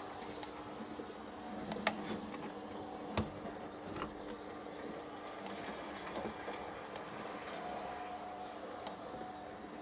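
Märklin E19 H0 model electric locomotive running light on Märklin M-track: a steady motor hum with a few sharp clicks of wheels over rail joints in the first half.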